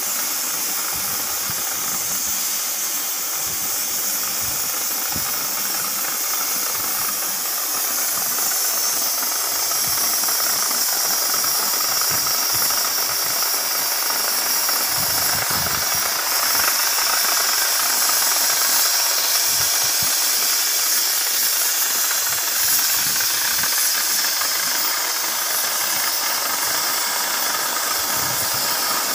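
CNC oxy-fuel cutting torch hissing steadily as its gas jet cuts through thick steel plate.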